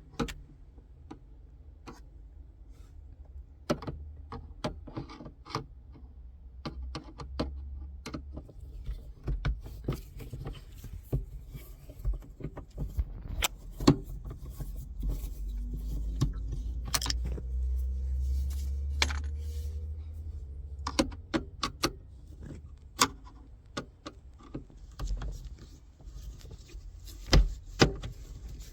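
Plastic interior trim and hand tools clicking, tapping and rattling at irregular intervals as the car's overhead light console is unscrewed and pried apart, over a low handling rumble that swells for a few seconds past the middle.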